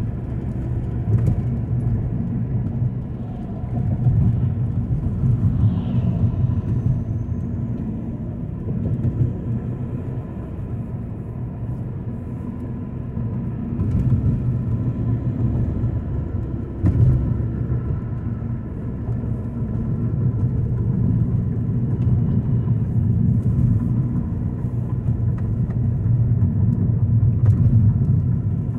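A car driving along: a steady low rumble of road and engine noise, with a few faint clicks.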